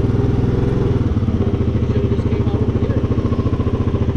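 Four-wheeler (ATV) engine running steadily with an even, fast pulse.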